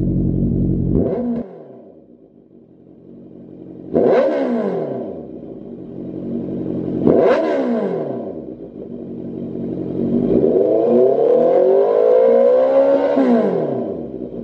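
Honda CB650F's inline-four engine revved on the stand through a Lextek CP8C carbon-fibre slip-on silencer. It gives two sharp throttle blips a few seconds apart, each jumping up and sliding back down in pitch, then a longer rev near the end that climbs slowly, holds and drops back to idle.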